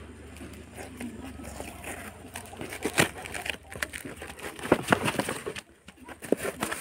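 Plastic parcel packaging crinkling and rustling as it is pulled open by hand: a quick, irregular run of sharp crackles, busiest in the second half.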